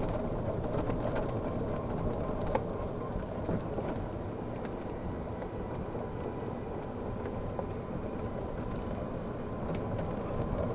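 Yamaha golf car driving along a paved cart path: a steady low rumble of the moving cart and its tyres, with a few light knocks and rattles from the body.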